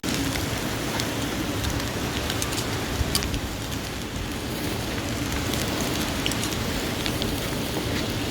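Steak and meatballs sizzling on a grill over an open fire: a steady hiss with scattered sharp crackles and pops.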